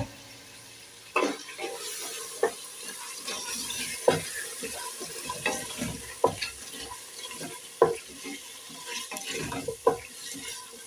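A spoon stirring a pot of beans and potatoes, knocking and scraping against the pot at irregular intervals, over a faint sizzle of the pot cooking.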